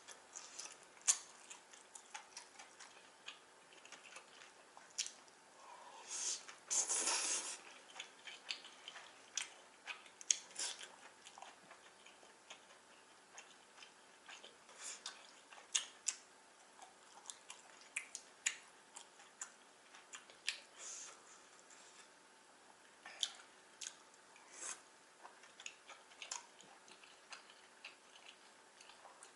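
Close-up eating sounds from someone eating jajangmyeon noodles: wet chewing with many small irregular clicks, and a longer noisy burst about seven seconds in.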